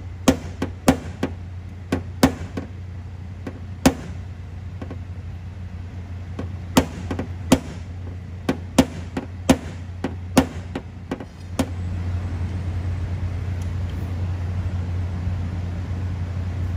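Light, irregular taps of a paintless-dent-repair hammer and knockdown tool on the car's sheet-metal panel, about fifteen over eleven seconds, tapping the metal down along the dented body line. Under them runs a steady low hum that gets louder about eleven and a half seconds in, after the tapping stops.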